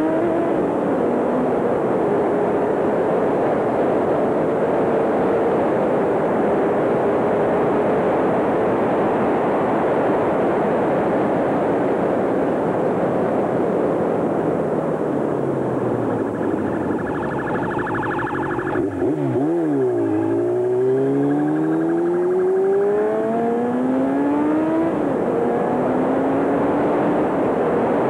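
Vehicle engine at speed, its pitch climbing over several seconds, dropping and climbing again as it accelerates through the gears, over a steady rush of road and wind noise.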